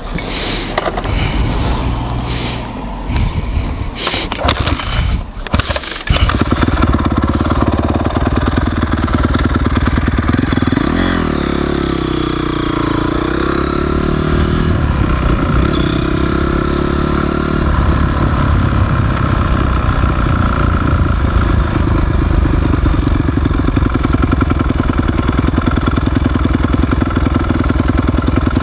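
Irregular clattering, then about six seconds in a motorcycle engine starts and runs steadily, revving up and back down briefly a few seconds later.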